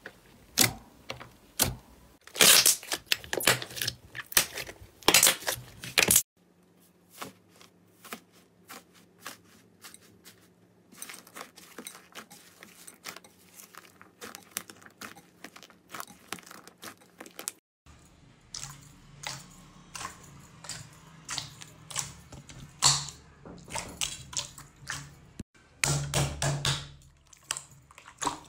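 Hands poking, pressing and squeezing slime: a long run of sticky clicks, pops and squelches. They are loudest and most spaced out over the first six seconds, then softer and denser, picking up again in the last ten seconds.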